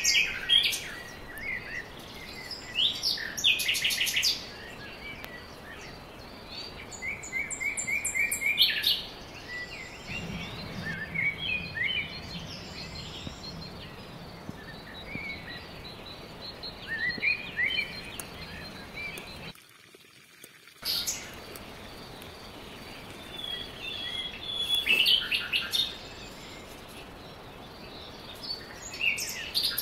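Small birds chirping and trilling in short, repeated high calls over a faint steady hiss of open air, with the sound cutting out for about a second about two-thirds of the way through.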